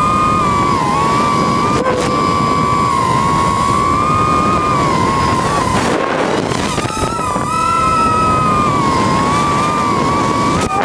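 Electric motors and propellers of a camera drone in flight, a steady whine whose pitch wavers up and down as it manoeuvres, over a rush of wind on the on-board microphone.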